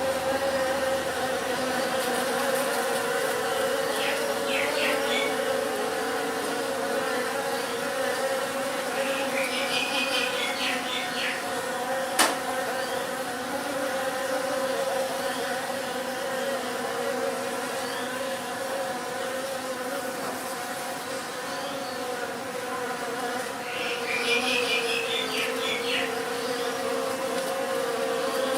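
A swarm of bees buzzing, a dense steady drone. Short clusters of high chirps break in three times, and there is one sharp click about midway.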